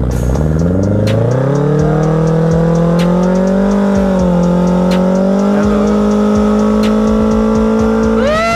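Suzuki Hayabusa's inline-four engine with an aftermarket titanium exhaust revving up and held at high, steady revs while the rear tyre spins in a burnout. A brief rising-then-falling tone comes near the end.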